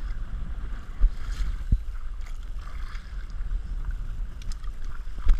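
Kayak paddling on open water: paddle strokes splashing and water lapping at the hull, over a low rumble of wind on the microphone, with a few dull knocks, one about a second in, one soon after and one near the end.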